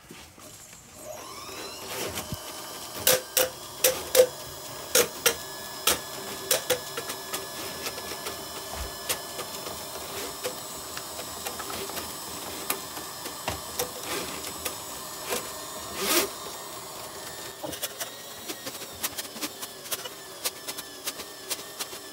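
Electric flexible drain rodder starting up about a second in and running steadily, a whirring motor with a thin whine, as its spinning 8 mm wire is fed into a clogged floor drain. Sharp knocks and clatters come over it, many between about three and seven seconds in and one loud one near sixteen seconds.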